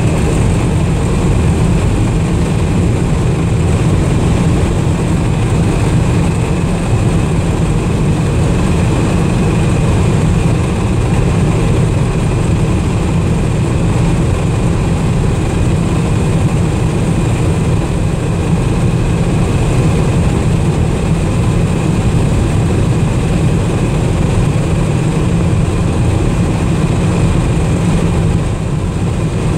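Inside the cab of a 1979 Dodge D300 pickup with a 360 four-barrel V8, cruising near 70 mph: a steady low engine drone mixed with tyre and wind noise, with a faint thin whine above it.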